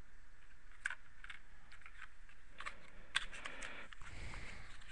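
Trading cards being handled and flipped through by hand: scattered light clicks and ticks, with a soft sliding rustle as cards are pushed apart about halfway through.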